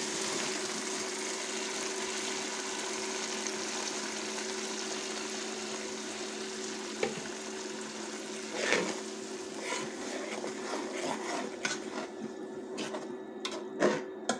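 Tomato, garlic, ginger and green-chilli paste sizzling as it hits hot oil and fried onions in an aluminium pot, the sizzle slowly dying down, with a faint steady hum underneath. In the second half a metal ladle stirs the paste, knocking and clinking against the pot a few times.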